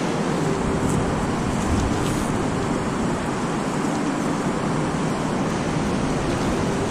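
Steady rush of fast-flowing creek water.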